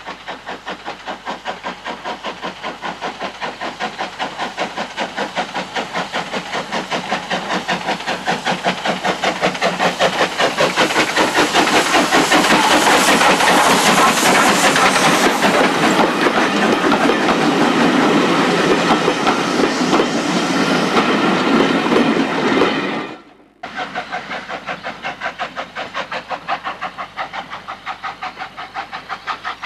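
SE&CR C class steam locomotive running past with a rapid, even beat that grows louder to a peak in the middle. About three-quarters through the sound cuts out suddenly, and the beat returns at a lower level.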